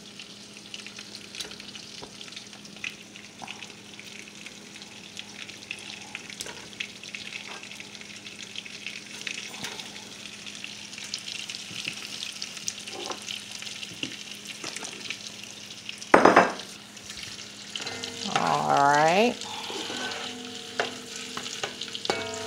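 Spicy Italian sausage frying in butter and olive oil, with a steady crackling sizzle as a spatula pushes the pieces around the pan. Near the end there is one loud knock, then a short tone that dips and rises in pitch over about a second.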